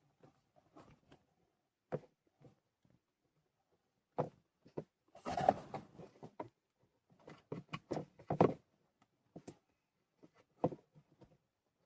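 Handling noises from work behind a pickup's glove box: scattered clicks, taps and short rustles of hands fitting the blower motor resistor and its wiring into place. They are busiest in the middle of the stretch.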